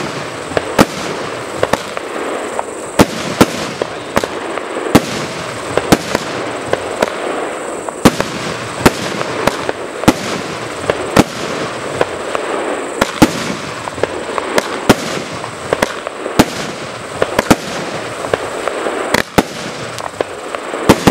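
A 19-shot fireworks cake firing in a continuous volley: sharp bangs at irregular intervals, roughly one to two a second, as the shells launch and burst, with a steady rush of noise between them.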